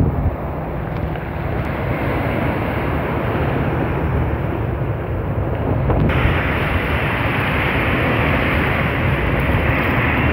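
Wind buffeting the microphone over surf; about six seconds in it changes abruptly to a steadier, brighter rushing noise, the engines of an approaching twin-engine jet airliner.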